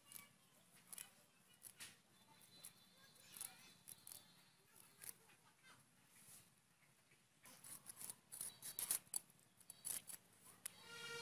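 Small spotted snakehead fish being scraped and cut against the iron blades of two boti, curved standing fish knives. Faint, irregular scratchy strokes that come faster and louder in the last few seconds.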